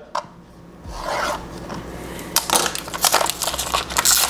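Packaging of a box of new skateboard bearings crinkling and crackling as it is handled and opened by hand. It is fairly quiet for the first second or so, and the crackling grows busier from about two seconds in.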